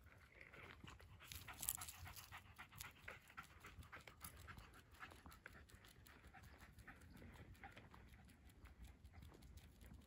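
A Jack Russell terrier panting faintly, mixed with many small irregular ticks and scuffs of steps on the pavement.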